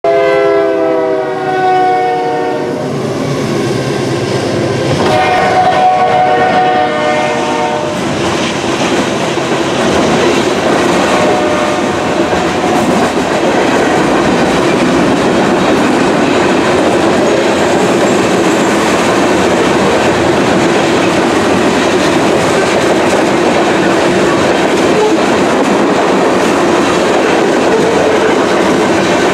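Freight train horn at a grade crossing: two blasts, the first about two and a half seconds long and dropping slightly in pitch at its end, the second from about five to eight seconds in. After that, the steady wheel-on-rail noise of freight cars rolling past.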